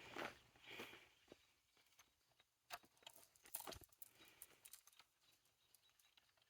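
Near silence with scattered faint clicks and ticks, a few slightly louder ones a little past the middle.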